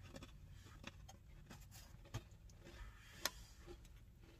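Near silence in a car cabin, broken by a few faint small clicks and taps, the two sharpest about two and three seconds in.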